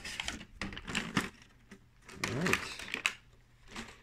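Die-cast toy cars and their packing tray being handled: a run of irregular light clicks and clacks, with small metal-and-plastic cars knocking against each other and the tray.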